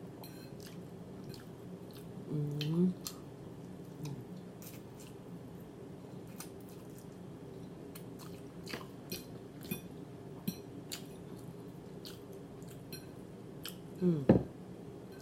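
A person chewing food close to the microphone, with many small wet mouth clicks and smacks. It is broken twice by a short sound from the voice, once about two and a half seconds in and more loudly near the end.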